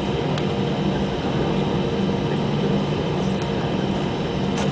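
Steady cabin drone of an Airbus A320 on the ground, its jet engines running at low power with a constant low hum, and a light click near the end.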